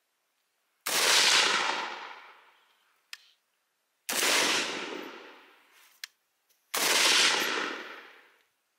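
Live Free Armory AR-15 rifle in .223 firing three single aimed shots about three seconds apart, each shot ringing out and fading over about two seconds. A faint click comes between shots.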